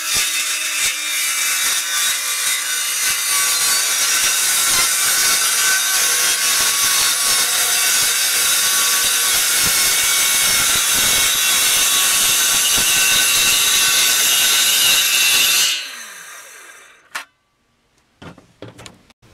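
Ryobi 18-volt cordless circular saw cutting through a sheet of 1/8-inch Baltic birch plywood for about fifteen seconds, then the blade winding down with a falling pitch once the trigger is let go. A click and a few light knocks follow near the end as the cut strip is lifted.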